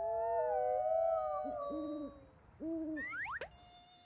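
Cartoon owl hooting: a long, slowly falling hoot, then two short hoots. Near the end a quick rising glide sounds, and a thin, steady mosquito whine begins.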